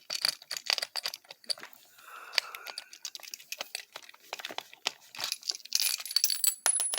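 Rapid small metal clicks, clinks and rattles of doorknob hardware and a screwdriver as a mounting screw is worked at but won't tighten, because the doorknob's screw holes are not lined up. A brief scraping comes about two seconds in, and a few higher ringing clinks near the end.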